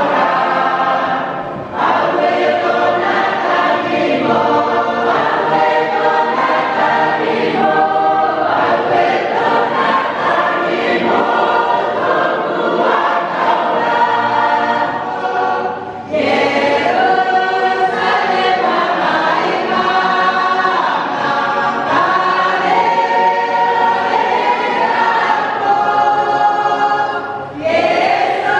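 Church congregation singing a hymn together in many voices, with short breaks between lines: one about a second in, one halfway through and one near the end.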